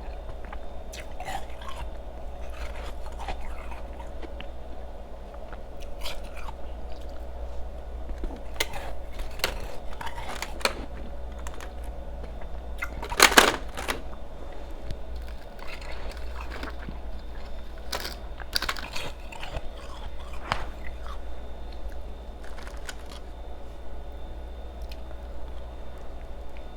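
A person chewing ice close to the microphone: irregular bites and crunches, the loudest crunch about 13 seconds in, over a steady low hum.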